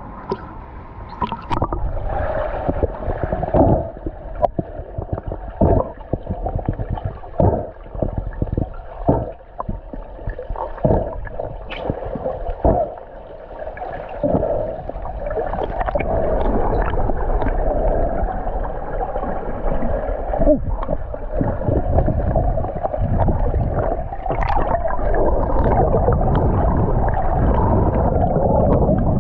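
Muffled underwater swimming-pool sound picked up through a submerged camera: scattered knocks and splashes in the first half, then a steadier, louder rush of water noise.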